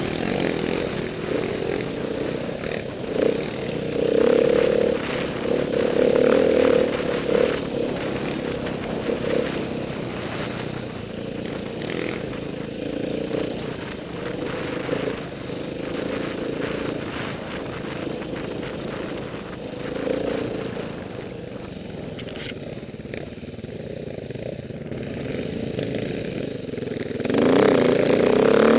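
Off-road dirt bike engine running beneath the rider, rising and falling with the throttle as it climbs a rough grassy forest trail. The engine eases off and quietens for several seconds past the middle, then opens up loudly near the end.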